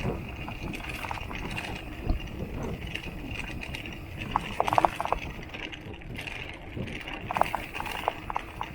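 Mountain bike's bottle cage rattling and clinking as the bike runs over rough trail, in two short spells of metallic rattles about four and a half seconds in and again around seven and a half to eight seconds, over steady riding noise.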